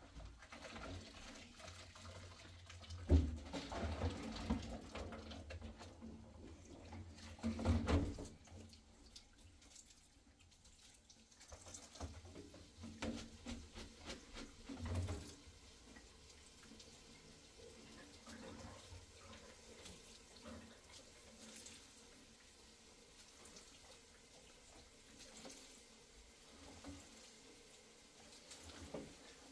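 Water running and splashing, with irregular knocks and clatter of handling, loudest in the first eight seconds.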